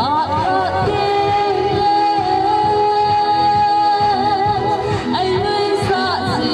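A song with a singer over instrumental backing and a steady beat. The voice sings ornamented, wavering turns, then holds one long high note from about a second in to about four seconds, and runs into more quick turns near the end.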